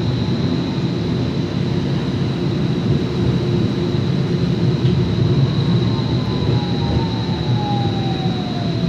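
Portland streetcar heard from inside the car: a steady low rumble of the running car with a thin high whine over it. About five seconds in, the electric motor whine slides down in pitch as the car slows.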